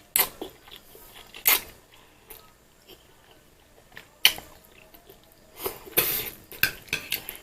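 Eating instant fried noodles: several sharp clicks and taps of a utensil on a plate, with faint chewing between them.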